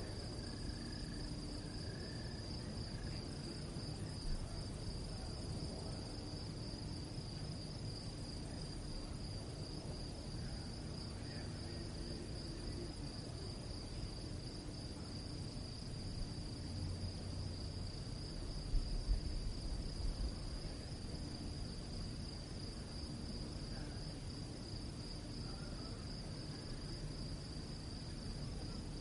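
Crickets chirring in a steady, continuous high-pitched chorus over a low background hiss, with a few soft low thumps about two-thirds of the way through.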